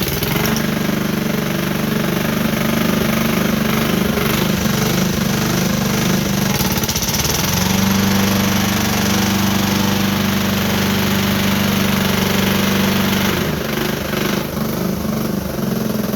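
Lawn mower engine running with a loud knock from its bottom end, which the owner takes for rod knock. The engine note dips near the end.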